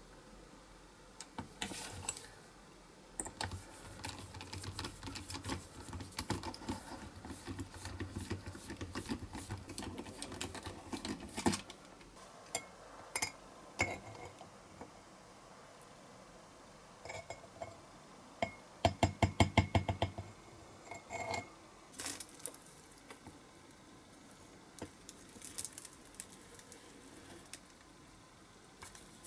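Small bench-tool work on a plastic model part: a miniature drill runs for several seconds as its bit bores into the part, then scattered taps and clicks of small parts being handled and trimmed with a craft knife, with a quick loud run of clicks about two-thirds of the way through.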